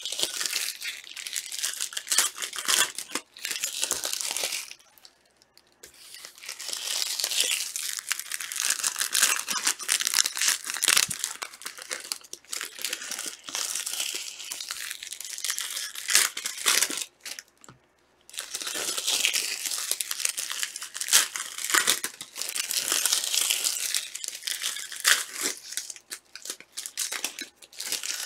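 Plastic wrapping on trading card boxes and packs crinkling and tearing as it is pulled open, a dense crackle that stops briefly about five seconds in and again about eighteen seconds in.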